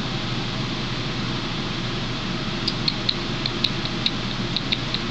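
Steady fan-like hiss with a faint low hum, and from about halfway a quick irregular run of light, high ticks.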